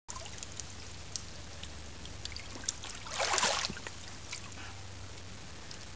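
Water splashing briefly about three seconds in as a largemouth bass is lifted out of the river over the side of a canoe, with scattered small drips and taps around it.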